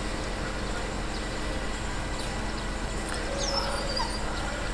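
Steady background noise, like distant traffic, with a few short high-pitched chirps starting about three seconds in.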